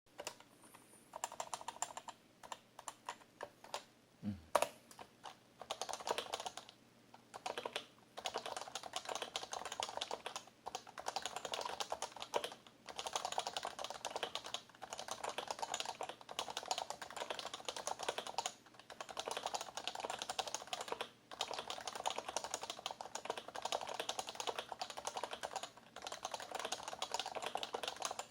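Typing on an HHKB (Happy Hacking Keyboard) Professional BT with Topre switches: a few scattered keystrokes at first, a single louder knock about four seconds in, then fast continuous typing broken by brief pauses every few seconds.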